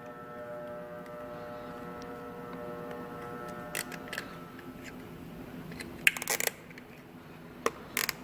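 Sharp plastic clicks and rattles from the wiring of a turn-signal module being bound with a cable tie, with a quick run of clicks about six seconds in. A steady humming tone stops a little before the first click.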